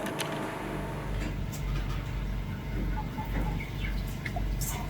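A low, uneven rumble with a few faint, short chirps and light clicks over it.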